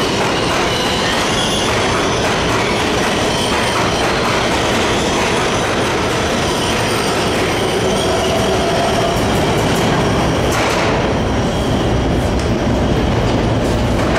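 A twelve-car R188 subway train running past through an underground station: steady, loud wheel-on-rail noise with faint high squealing tones. About eleven seconds in, the higher part of the noise falls away as the last car passes, leaving a low rumble.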